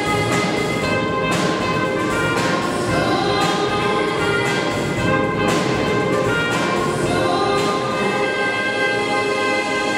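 Youth choir singing with a live band, the voices holding notes together over keyboard and trumpet, with a steady beat about once a second.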